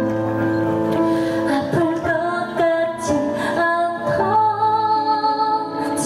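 A woman singing a slow Korean ballad live into a microphone over instrumental accompaniment, amplified through the stage speakers, with long held notes.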